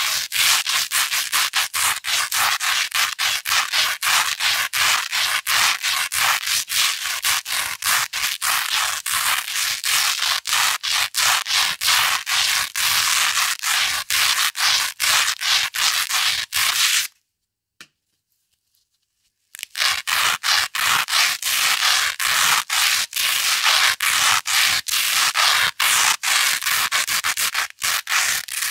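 Velcro hook tape being rubbed and scratched against loop fabric in rapid, rough, crunchy strokes. The sound cuts out for about two and a half seconds a little past halfway, then carries on.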